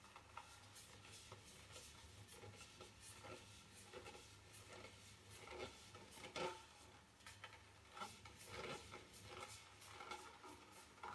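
Faint rubbing with scattered light clicks as mixed resin is worked around a carbon fibre fishing-pole section, close to near silence.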